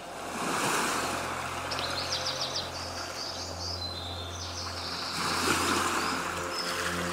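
Ambience track: a steady rushing noise like surf or wind over a low steady hum, with birds chirping in a quick high run about two seconds in and a few more calls later.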